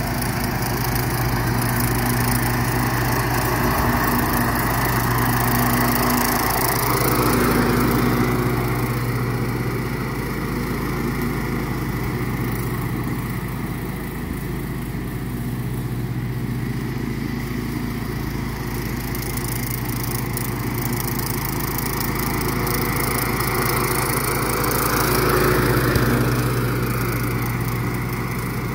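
Howard Price Turfblazer 48-inch walk-behind mower's engine running steadily under load while its blades cut grass. The engine note swells briefly twice, about seven seconds in and again near the end.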